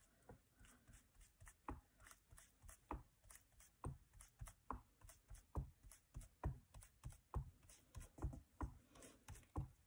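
Ink blending tool rubbing and dabbing Distress Oxide ink onto card through a stencil: a steady run of faint short strokes, about one a second.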